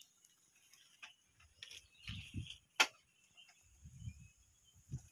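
Faint, sparse sharp clicks and a few soft low knocks, the loudest click near the middle, over a faint steady high-pitched hum.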